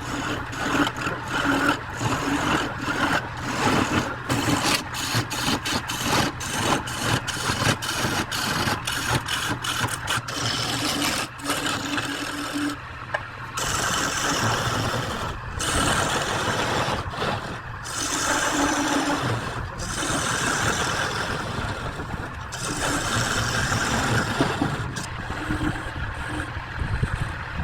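Wood lathe running with a turning tool cutting the spinning workpiece: a steady motor hum under a rough cutting hiss, with many sharp clicks in the first ten seconds or so, then steadier cutting broken by brief pauses.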